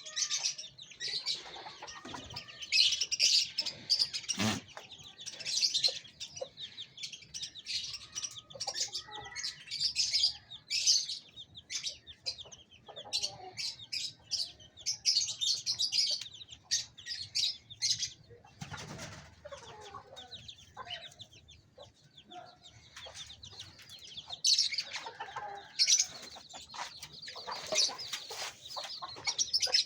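Many small birds chirping constantly in quick, high calls, with a few lower clucking calls from chickens and some wing flapping.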